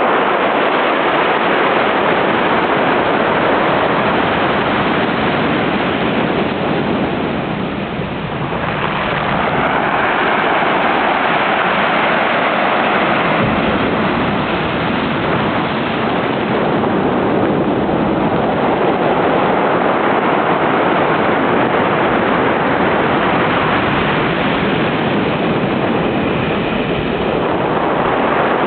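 Pacific Ocean surf breaking and washing up the beach in a continuous rush that swells and eases, with a brief lull about eight seconds in before the next wave builds.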